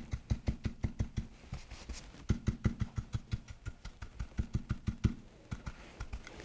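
Round bristle stippling brush dabbing rapidly on a painted wooden molding, a steady patter of soft taps about five or six a second with a brief lull about five seconds in. This is a subtractive stipple: the dabbing lifts some of the wet metallic glaze to leave a soft shimmer.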